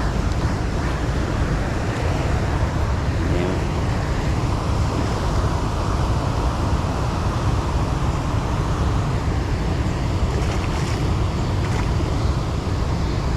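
Steady rush of water pouring through a spillway, with a low wind rumble on the microphone and a few faint ticks near the end.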